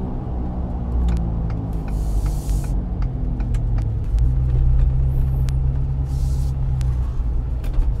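Ford 6.7 L Power Stroke V8 turbodiesel with an aftermarket open air intake, heard from inside the cab as the truck slows and turns off the road. The engine note steps down and then holds steady, with a few brief high airy hisses.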